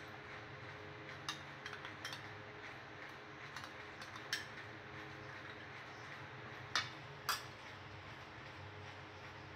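A spoon clinking and scraping against a small glass bowl while scooping out ginger-garlic paste: a few light clicks, the two loudest about seven seconds in, over a steady low hum.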